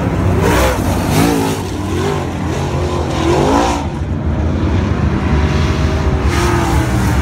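Dirt-track race cars running around the oval, a steady low engine drone with engines revving up in short rising surges several times as cars accelerate and pass.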